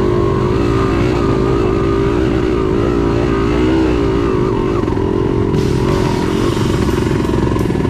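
Kawasaki KMX 125 dirt bike's two-stroke single-cylinder engine running under changing throttle while riding a trail, its pitch rising and falling. A steady hiss joins about five and a half seconds in.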